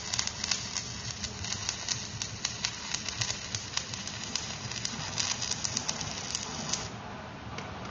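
Electric arc welding on an excavator bucket adapter: a steady crackling and sputtering arc with frequent sharp pops, which stops abruptly about seven seconds in as the arc is broken, leaving a quieter hiss.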